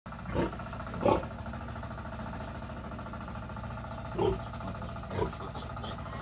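Piglets in a pen giving four short squealing grunts as they are handled and caught, over a steady machine-like hum.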